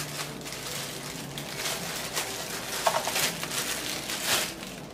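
Clear plastic bag crinkling and rustling as it is handled and opened, with louder crackles about three to four and a half seconds in.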